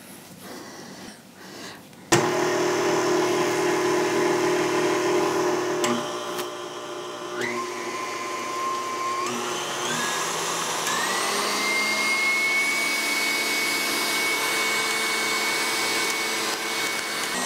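KitchenAid Artisan stand mixer switched on about two seconds in and running steadily, its wire whisk whipping an egg-white bread batter in a glass bowl. Its motor whine steps up in pitch several times in the second half.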